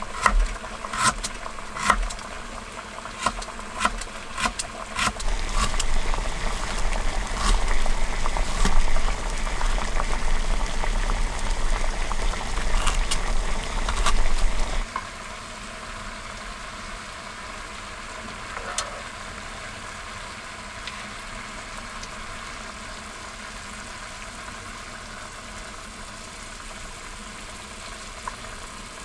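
Knife tapping sharply on a cutting board as ginger is sliced, over water boiling in a pot on a small gas stove, with a low rumble under it. About halfway through the chopping and rumble stop, leaving only the steady bubbling of the boiling water.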